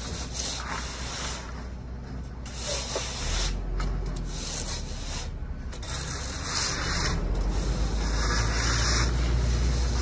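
Screed bars and floats scraping and rubbing across wet concrete in repeated strokes. A low rumble grows louder in the second half.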